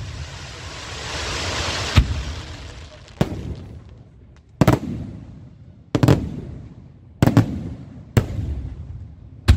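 Aerial firework shells bursting: a hissing rush for the first two seconds, then a run of sharp bangs, about one a second and eight in all, each dying away over about a second.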